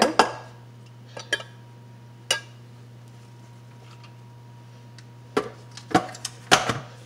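Sharp clinks and knocks of a measuring cup and utensils against a blender jar: a few near the start, a quiet stretch, then a cluster near the end, over a steady low hum.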